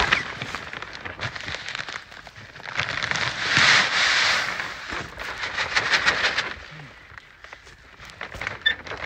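Granular fertilizer pouring from a plastic sack into a spreader hopper: a crackling, rattling hiss of pellets, with the sack crinkling. It comes and goes in several pours, quieter near the end.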